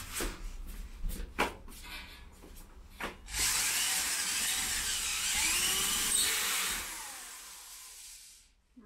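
A few handling clicks and knocks, then a corded electric drill runs steadily for about three and a half seconds, driving a self-tapping screw, and winds down near the end.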